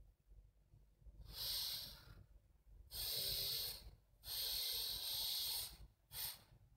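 A person breathing audibly close to a headset microphone: four breaths, each about a second long, the third one longer.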